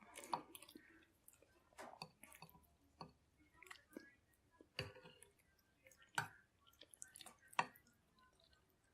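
A person eating chicken soup: soft wet mouth and chewing sounds with scattered light clicks. Three sharper clicks come in the second half, about one and a half seconds apart.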